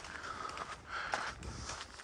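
Footsteps on a rocky dirt trail at a walking pace, about two steps a second.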